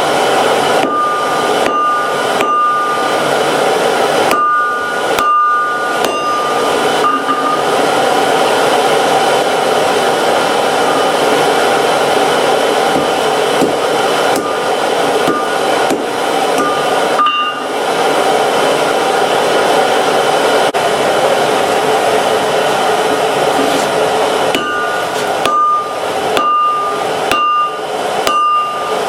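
Hammer blows on steel at an anvil, each strike followed by a high anvil ring: a run of strikes about every half to one second at first, a long stretch with none, then more strikes near the end. A forge blower hisses steadily underneath.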